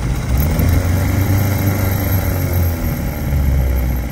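An engine idling with a steady low hum.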